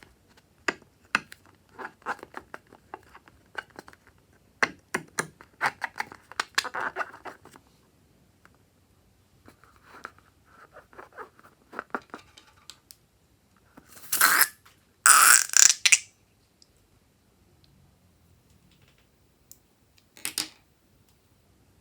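Handling sounds from making slime: a run of small clicks and crackles, then two loud noisy bursts about fourteen to sixteen seconds in and a shorter one near twenty seconds.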